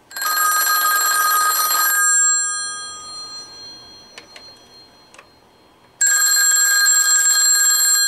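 Western Electric rotary dial desk telephone's dual-gong bell ringer ringing on an incoming call, set to loud. It rings for about two seconds, stops for about four, then starts ringing again near the end.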